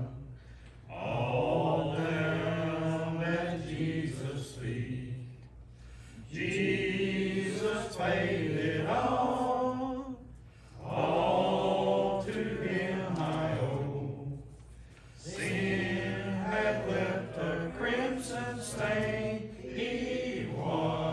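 Church congregation singing a hymn in long sung phrases, with brief pauses for breath between them.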